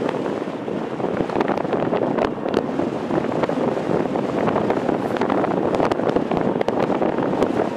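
Distant GE90 jet engines of a Boeing 777-300ER running on the runway: a steady, noisy rumble with frequent crackles, mixed with wind buffeting the microphone.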